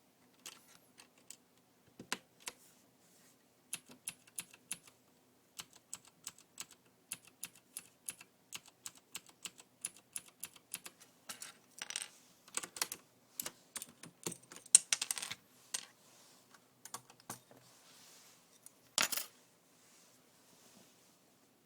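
Typing on a Leopold FC700R mechanical keyboard with clicky Cherry MX Blue switches: irregular sharp keystroke clicks, sparse at first, then quicker runs in the middle, with one longer, louder clack near the end.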